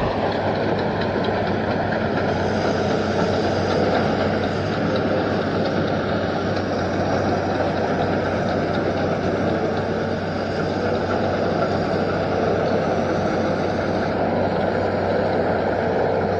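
Hitachi Zaxis 210 amphibious excavator's diesel engine running steadily under load as the machine drives itself on its pontoon tracks, with a continuous mechanical rattle.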